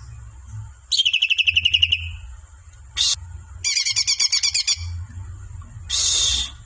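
Songbird singing in fast trills of rapidly repeated notes: one trill about a second in, a short note near three seconds, a second dense trill, then a harsh buzzy call near the end.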